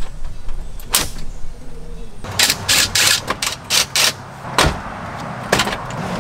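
Cordless drill driver running in short bursts as screws are backed out of the truck's dash trim, among sharp clicks and knocks of plastic trim panels.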